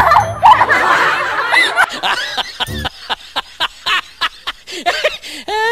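A person's snickering laugh in a long run of short bursts, about three a second, after a second or two of dense voices.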